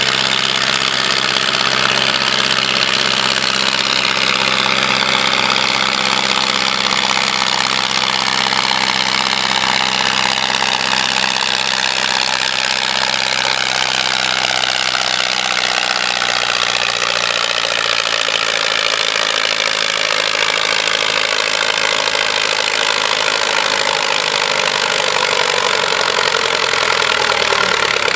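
Diesel farm tractor engine running flat out as it drags a weight-transfer pulling sled, its pitch sinking slowly through the second half as the engine is pulled down by the growing load.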